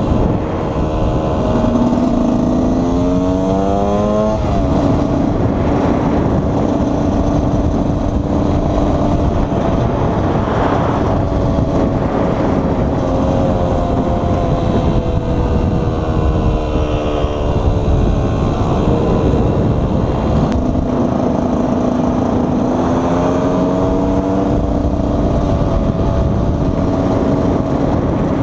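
KTM 125 EXC two-stroke single-cylinder engine under way, revving up in quick steps through the gears a few seconds in, then easing off with the pitch slowly falling, and pulling up again near the end.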